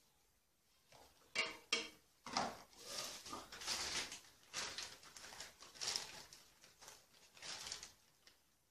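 Two sharp clicks as a small plastic phone tripod is handled and stood on a glass tabletop, then several seconds of paper packaging crinkling and rustling.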